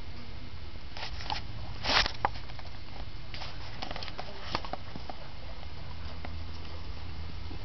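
Sheep moving about in a corral: hooves scuffling and pattering, with scattered knocks and clatters, the loudest a sharp scuff about two seconds in.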